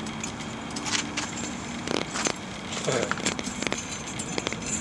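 Steel crucible tongs clinking and scraping against a hot crucible and the rim of a small propane furnace: a string of sharp metallic clicks and knocks as the crucible is gripped.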